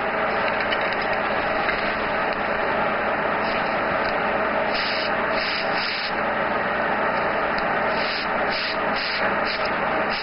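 Airbrush spraying paint: a steady hiss of compressed air, with several short stretches where it grows brighter and louder.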